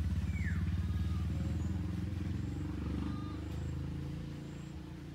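A motor vehicle engine running with a rapid low throb, growing fainter about four seconds in.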